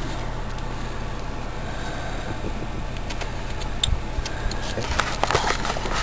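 A steady low hum throughout, with a few faint clicks and taps in the second half.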